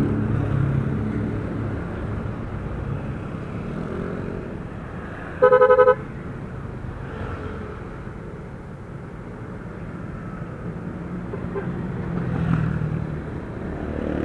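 Motorcycle riding in traffic, its engine and road and wind noise steady, with a short, loud vehicle horn blast about five and a half seconds in that sounds in quick pulses for about half a second.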